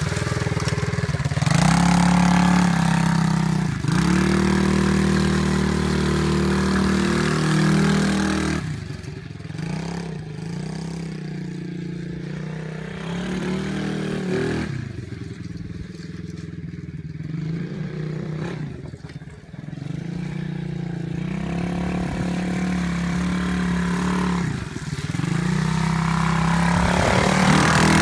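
Small pit bike engine revving and pulling through its gears, its pitch climbing several times and dropping back at each shift or let-off. Loud as the bike passes close early on and again near the end, fainter while it circles farther away in between.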